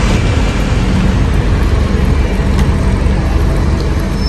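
Water spraying steadily, a loud, even rushing noise, as mud is washed off a toy vehicle.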